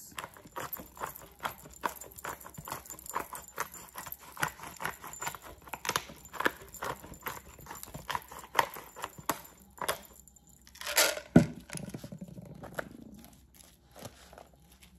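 A fork tossing salad in a glass bowl: a run of irregular clicks and taps, a few a second, with one louder knock about eleven seconds in.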